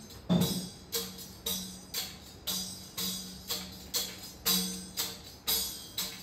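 Hand-held frame drum struck by hand in a slow, steady beat, about two strokes a second, each stroke a low boom with a bright ring over it.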